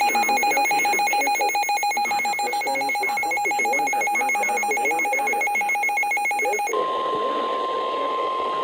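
Rapidly pulsing electronic alert beeping, a buzzy tone with many overtones, over weather-radio static. About seven seconds in it gives way to the steady single-pitch NOAA Weather Radio warning alarm tone, which announces the next warning.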